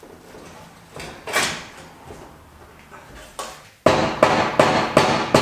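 Mallet blows on a heavy steel ARB rear bumper bar, knocking it into place on the Jeep's mounts: about four seconds in, a fast, even run of sharp strikes starts, about three a second. Before that, quieter scrapes and clunks of the steel bar being slid into position.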